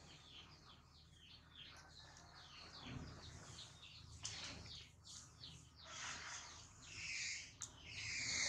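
Small bird chirping: a quick run of short, falling chirps, several a second, over the first half. A louder, noisy rustle-like sound comes in near the end.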